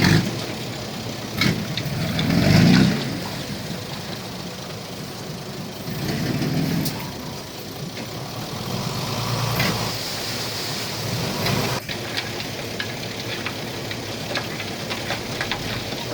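Diesel engine of heavy earthmoving equipment running under changing load, swelling louder three times. A few short sharp knocks sound over it.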